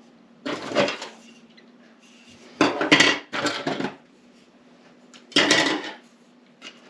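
3D-printed plastic parts clattering as they are handled and set down on a table, in four short bursts of rattling knocks with a small click near the end. A faint steady hum runs underneath.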